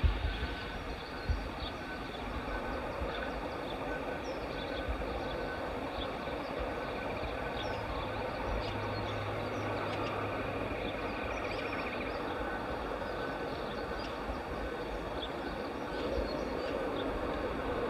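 Steady hum and hiss of a Class 91 electric locomotive and its train standing at the platform, with a deeper hum for a couple of seconds midway. Faint bird chirps come through, and there are a couple of low bumps near the start.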